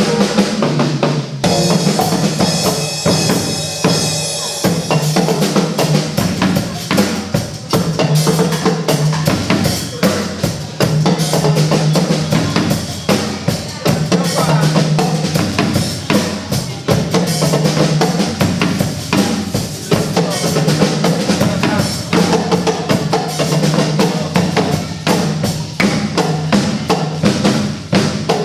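Drum-led music: fast, dense drumming with several strikes a second over a low note that recurs every couple of seconds.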